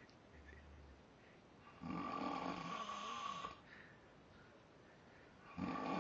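A man snoring in his sleep: one long snore about two seconds in, and the next one starting near the end.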